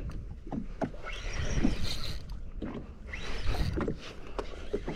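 Water sloshing and splashing against the hull of a jet ski drifting at sea, in two swells a couple of seconds apart, with a steady low rumble and a few light knocks.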